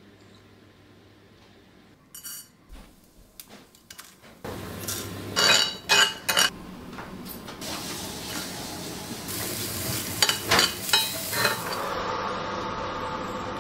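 A metal spoon scraping and clinking against a small cast-iron skillet as whole spices (urad dal, methi seeds) and dried red chillies are dry-roasted, with a light sizzle. After a quiet start the clinks grow louder, with bursts of scraping about five seconds in and again around ten seconds.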